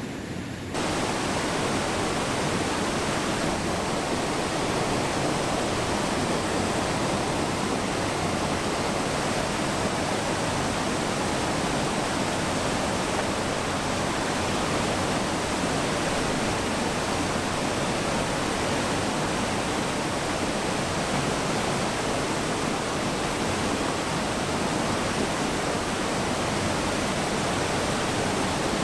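Steady rushing of a small waterfall pouring over a rock ledge into a creek pool. It comes in abruptly about a second in and then holds even.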